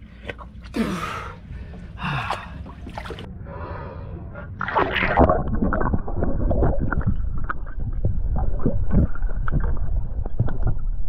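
A man gasping and breathing hard as he goes into cold water. About five seconds in, the microphone goes under water and the sound turns muffled, with bubbling and scattered clicks.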